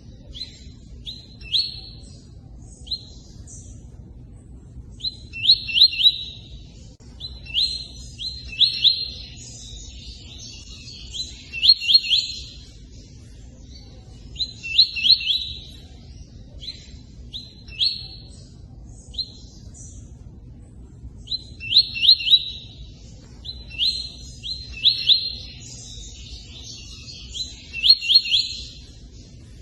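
A bird known in Brazil as tui-tui calls in short groups of quick, sharp chirps every two to three seconds, with brief pauses between them. A steady low rush of running water lies underneath.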